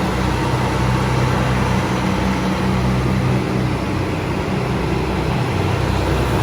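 A vehicle idling: a steady low hum that holds one pitch without rising or falling.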